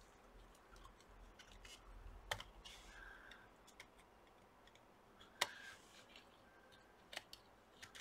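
Faint, sparse small clicks and taps as gloved fingers work the Wi-Fi and speaker cables loose inside an opened laptop, with near silence between them. The sharpest click comes about five and a half seconds in.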